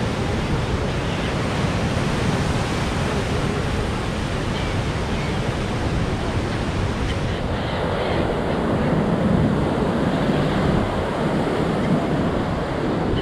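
Wind rushing over the microphone: a steady, loud noise that grows a little heavier and deeper about eight seconds in.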